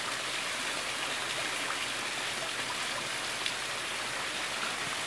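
Steady hiss of moving water as a hand dips a test meter's sample cell into a swimming pool to fill it, with one small click about three and a half seconds in.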